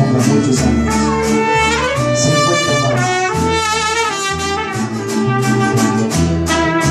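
Mariachi band playing an instrumental passage. Trumpet and violins carry the melody over steadily strummed guitars and the alternating bass notes of a guitarrón.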